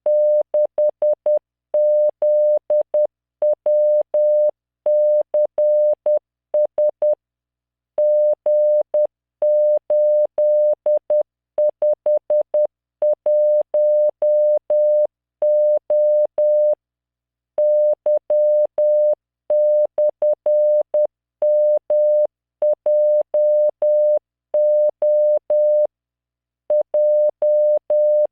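Morse code at 10 words per minute: a computer-generated 600 Hz tone keyed on and off in dots and dashes, sending random five-character code groups with a longer pause between groups.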